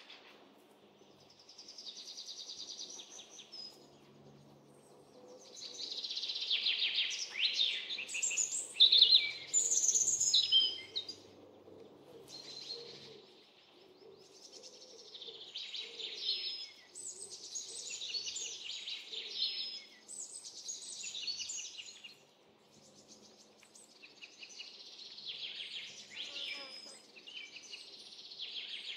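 Songbirds singing in repeated phrases of quick chirps, trills and whistles, with short pauses between phrases. The loudest stretch comes about a third of the way through.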